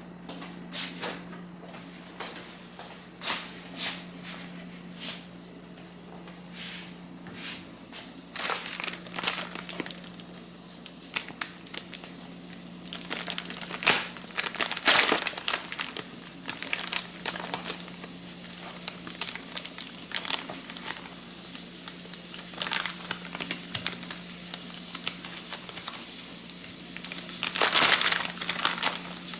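Plastic deli-meat package crinkling as it is handled and slices are pulled out, in irregular bursts that are busiest around the middle and near the end. A steady low hum runs underneath.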